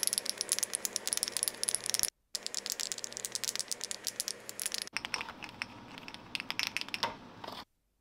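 A small plastic mixing jar being shaken fast, its metal mixing ball rattling about inside to blend black fabric repair fibres. The rattling is broken by two brief silences, about two seconds in and near the end.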